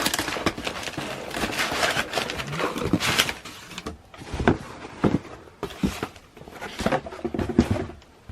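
Shoebox and packing being handled: dense crinkling and rustling for the first few seconds, then several separate knocks and thumps as the box and shoes are moved.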